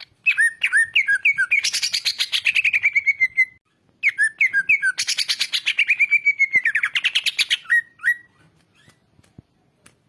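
Male greater green leafbird (cucak ijo) singing loud, full song: two phrases, each opening with a few looping whistled notes and running into a fast trill that falls in pitch, the second ending about two seconds before the close.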